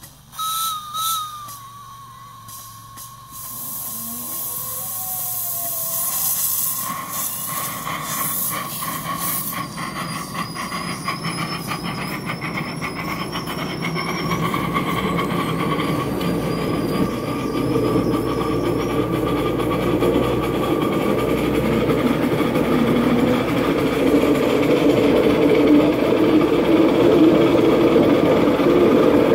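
Coal-fired live-steam miniature locomotive getting under way: a brief wavering whistle near the start, then rapid exhaust chuffs and steam hiss, with the wheels squealing steadily and the running noise on the track growing louder as the train gathers speed.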